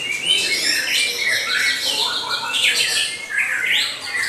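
White-rumped shamas singing: a dense, unbroken stream of quick whistled phrases, chatter and harsh notes, several birds overlapping.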